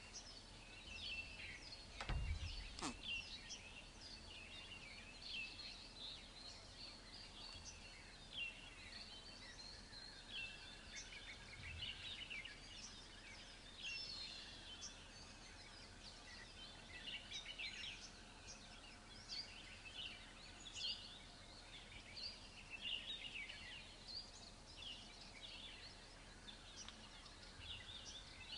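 Faint woodland ambience full of many small birds chirping and calling throughout, with a low thump and a click about two seconds in.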